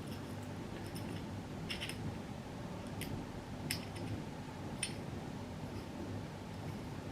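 Small metallic clicks and ticks of screws and a Torx driver being handled on a rifle mount, about five of them spread over several seconds, over a steady low hum.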